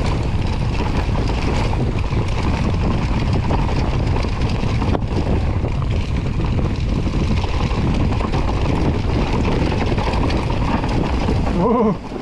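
Wind rushing over the microphone together with the rolling tyre noise and rattle of a mountain bike at speed on a descent. Near the end the noise drops and a voice begins.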